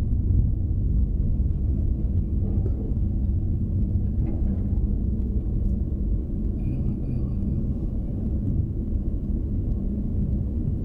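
Steady low rumble heard inside the cab of a VW T6.1 California camper van rolling slowly at walking pace, engine and tyres together, with a constant low hum. A faint high tone sounds briefly about two-thirds of the way through.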